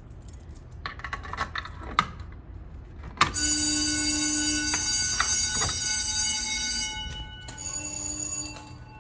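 Old Simplex fire alarm bell ringing continuously for about three and a half seconds, starting a few seconds in, then ringing again more quietly near the end. A few light knocks come before it.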